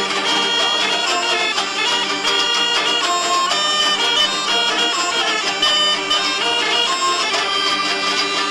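Background folk music: a high melody moving in short held notes over a steady low drone.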